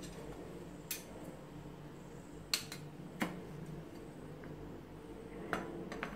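Kitchen knife chopping tomato slices on a plastic cutting board: about five separate, uneven taps of the blade hitting the board.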